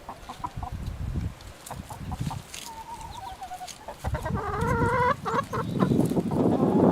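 Chickens clucking, with a longer wavering hen call about four seconds in. Low thuds throughout and a loud rustling noise near the end, which is the loudest sound.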